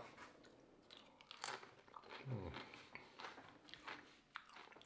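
Faint crunching and chewing of a corn tortilla chip dipped in guacamole, as a series of short separate crunches.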